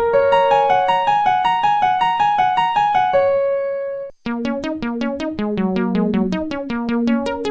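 Instrumental keyboard music: a melody of held notes that cuts off about four seconds in, followed at once by a quicker tune of short, evenly paced notes.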